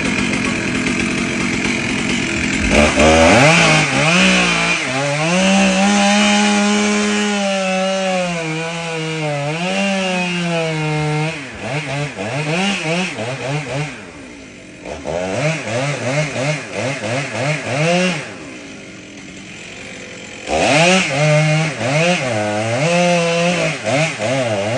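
Two-stroke chainsaw running at high revs, its pitch wavering up and down. It drops back to a quieter idle twice, then revs up again about three-quarters of the way through.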